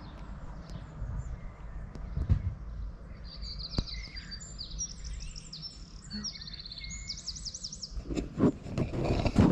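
A songbird sings several quick, high, trilled phrases over a steady low rumble from the moving bicycle and the wind. A louder rush of wind noise comes near the end.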